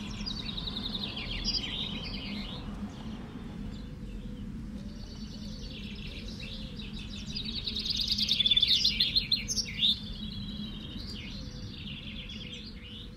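Several caged male common chaffinches singing their short trilled songs, one after another and overlapping, densest and loudest a little past the middle. A low steady hum runs underneath.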